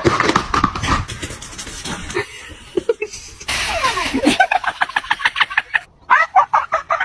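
People laughing and talking over a few short clips that change abruptly.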